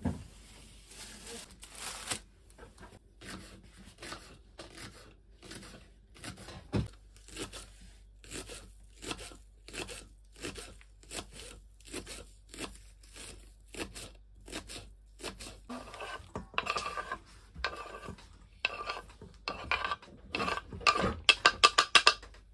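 Kitchen knife chopping green onions on a wooden cutting board: steady sharp chops about two a second, quicker and louder near the end.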